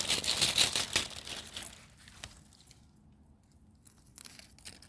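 Close rustling and crackling for about two seconds, then it dies away to a faint background.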